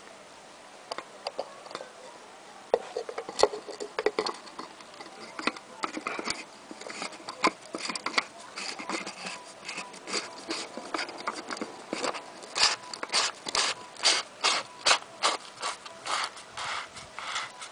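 Hands threading a new oil filter onto its mount by hand, with irregular scraping and clicking of metal and fingers against the filter. The clicks come faster and louder in the second half.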